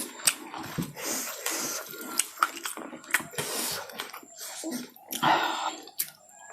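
Close-miked eating sounds: wet chewing and smacking with many sharp mouth clicks, and a louder wet stretch about five seconds in.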